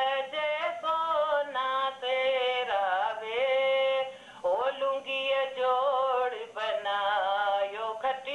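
A woman singing a folk song unaccompanied in a high voice, with long held notes that waver in a vibrato and two short breath pauses, heard through a television's speaker.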